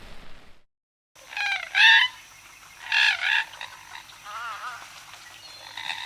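Short wavering animal calls in loud bursts, with a quieter rapid warbling call between them, after a brief hiss that cuts off into silence.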